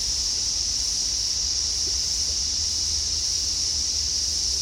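Steady high-pitched insect drone over a low rumble, unchanging throughout.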